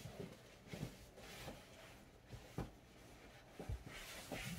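Faint rustling and several light knocks of packaged items being handled inside a cardboard shipping box, with a sharper knock near the end.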